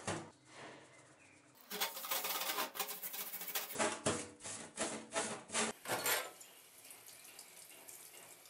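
Stainless steel scouring pad scrubbing softened old paint and rust off a steel axe head in a stainless steel sink, in rapid rasping strokes for about four seconds after a knock at the start. Tap water then runs over the head near the end.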